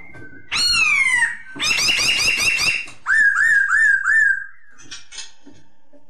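Black-throated laughingthrush (poksay Hongkong) singing loud whistled phrases: a falling slurred whistle, then a fast run of repeated notes, then four looping up-and-down whistles, with short pauses between the phrases.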